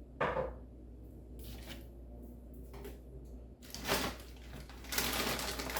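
Groceries being handled: a sharp knock just after the start, then scattered short rustles that thicken into dense crinkling of plastic packaging near the end.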